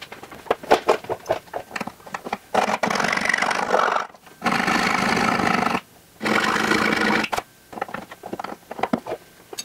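Small hand file rasping in quarter-inch holes in a fiberglass door skin, easing them until a lock's beauty ring fits. Short scattered scrapes give way to three longer spells of steady, rapid filing, each about a second and a half long, around the middle of the stretch.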